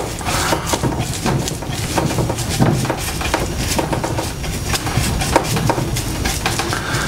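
Paintbrush scrubbing and dabbing latex paint onto the end grain and screw heads of a wooden beehive box: a run of irregular scratchy brush strokes over a steady low rumble.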